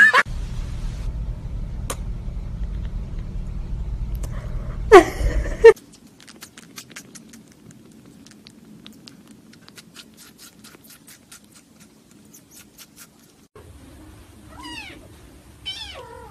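Domestic cats: a loud, low, steady rumble for the first five seconds or so, ended by a short meow. Then a quiet stretch with faint ticking while a kitten feeds from a syringe. Near the end come a few high, falling kitten mews.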